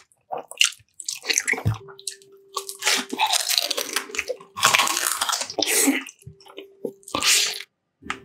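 Close-miked mukbang eating sounds: a series of chewing and crunching bites, each a fraction of a second long, with a faint steady hum coming and going behind them.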